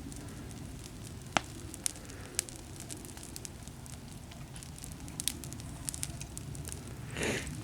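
Garden bonfire of leaves and damp grapevine cuttings burning, crackling with irregular sharp pops, one louder about a second and a half in. A brief hiss comes near the end.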